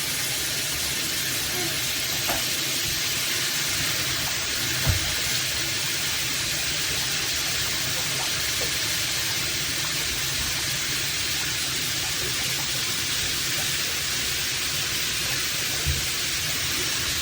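Water spraying steadily from an LED shower head, with a soft thump about five seconds in.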